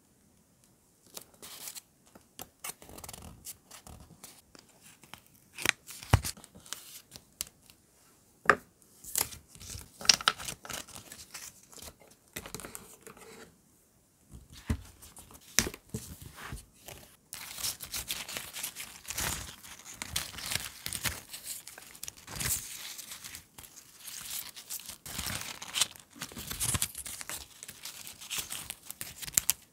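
Close-up paper handling. First come scattered taps and small paper clicks as a label is pressed onto a journal page with tweezers. A few knocks follow as a wicker basket is set down, and from about halfway there is dense rustling and crinkling of paper strips being sorted through in the basket.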